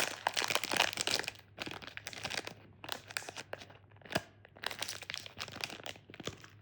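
Candy wrapper being crinkled and torn open by hand, a dense rustling crackle that thins out to scattered crinkles after about a second and a half.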